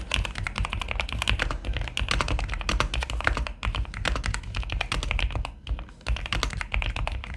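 Typing sound test on a GMK67 mechanical keyboard fitted with Ajazz PBT keycaps, no other modifications: a fast, dense run of keystroke clacks, with a short pause about five and a half seconds in.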